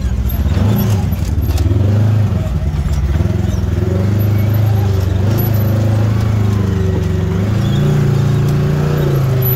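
Side-by-side UTV engine running at low revs as the machine crawls over dirt mounds and around tree stumps, its pitch rising and falling a little with the throttle and stepping up slightly near the end.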